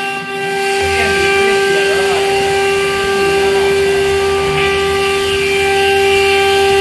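Water-cooled CNC router spindle running with a steady high-pitched whine while its bit routes a groove in MDF. A low hum joins about a second in.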